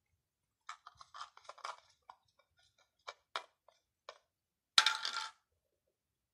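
Cat licking flan from a thin aluminium cup: a run of small clicks and clinks as its tongue and teeth knock the metal, then a louder short clatter of the cup on the concrete about five seconds in.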